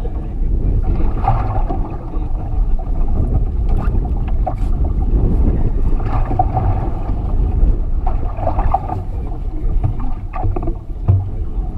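Steady low rumble of wind on the microphone and water moving against a small fishing boat's hull at sea, with a few brief knocks.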